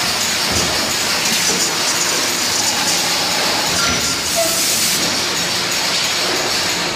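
Steady din of hydraulic presses running on an aluminum cookware forming line, with a constant hiss over it.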